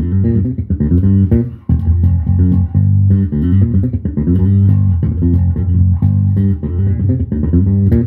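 Dingwall Z1 five-string fretless bass, played fingerstyle through an amplifier with the pickup selector in position 2 and the treble slightly cut. It plays a continuous line of deep notes with sliding glides between pitches, typical of a fretless neck.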